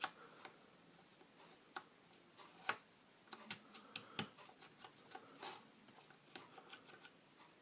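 Faint, irregular clicks and taps of small hard parts being handled, as an 18650 lithium cell is put back into its holder; the sharpest clicks come about two and three seconds in.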